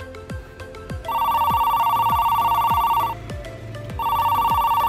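Mobile phone ringing with an old-style telephone ring tone: a warbling ring of about two seconds starting about a second in, and a second ring near the end. Background music with a steady beat plays underneath.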